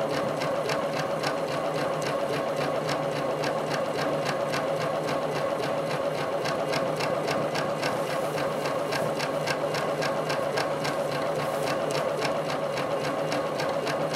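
Domestic sewing machine free-motion quilting: the needle and hopping free-motion foot stitching through the quilt layers at a steady, fast, even speed.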